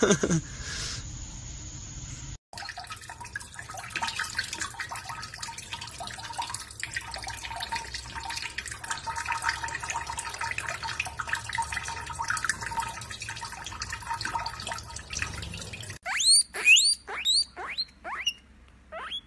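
Water running from a kitchen tap over cupped hands into a steel sink, a steady hiss with light splashing. About sixteen seconds in, a guinea pig gives a rapid series of loud, high squeaks, each falling in pitch.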